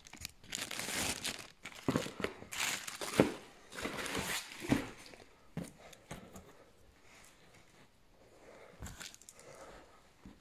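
Clear plastic wrapping crinkling and tearing as it is pulled off a cardboard box by hand, in bursts mostly in the first half, then fainter rustling with one more burst near the end.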